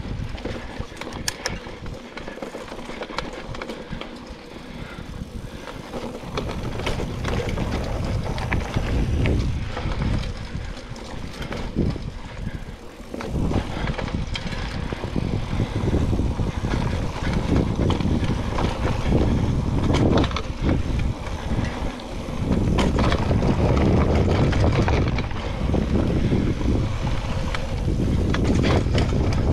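Mountain bike riding dirt singletrack: tyre noise and a low rumble with many small clicks and rattles. It is quieter for the first few seconds and gets louder from about halfway through.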